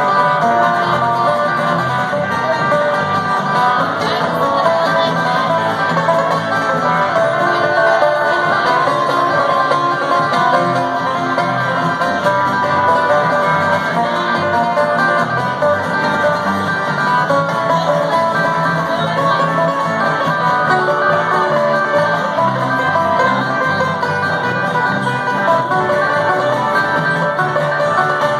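Bluegrass band playing an instrumental tune live: banjo picking over strummed acoustic guitars and electric bass, steady and unbroken.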